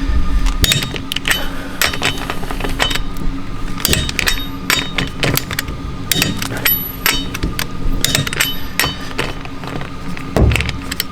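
Repeated sharp metal clicks and clinks of a torque wrench and socket working a car wheel's lug nuts, some with a short metallic ring, over steady background music.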